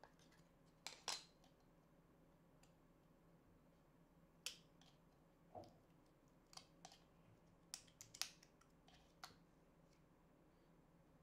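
Scattered small clicks and taps as a YC Onion Energy Tube LED light is handled, fingers working at its end. There are about a dozen irregular clicks, the loudest about a second in and again about eight seconds in.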